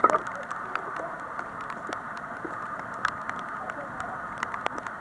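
Light rain pattering: many small irregular ticks over a steady hiss.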